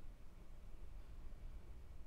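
Quiet room tone with only a faint low hum; no distinct sound event.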